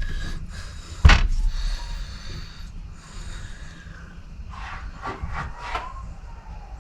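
Metal parts and tools being handled while a hydraulic valve is taken apart: one sharp knock about a second in, then a few lighter clicks and scrapes.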